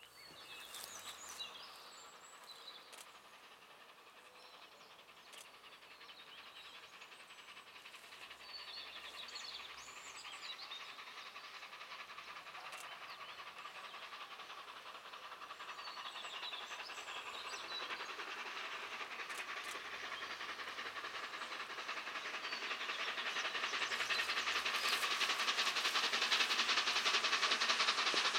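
Steam locomotive hauling a train towards the listener, its exhaust beats and running noise growing steadily louder as it approaches, with rapid even beats loudest near the end.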